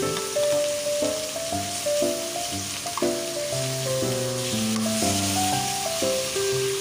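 Chicken pieces sizzling in a hot pan as they are stirred during sautéing, under background music with a melody of held notes.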